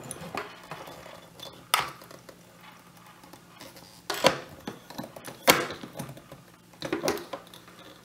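Hand pop-rivet gun being squeezed to set a pop rivet through a guitar-case latch: a series of sharp metallic clicks, one every second or two, the loudest near the middle.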